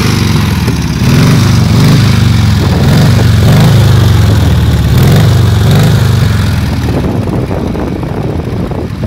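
K-750 motorcycle's side-valve flat-twin engine running and being revved by hand with the throttle, its pitch rising and falling in repeated blips about a second apart, then easing back toward a steadier idle near the end.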